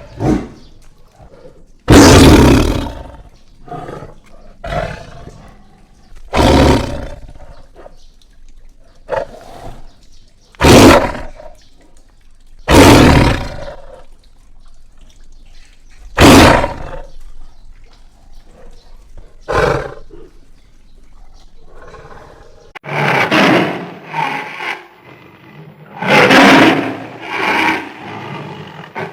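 Monster-cat creature sound effects: a string of separate roars and snarls of a big cat, each about a second long, with longer, rougher calls near the end.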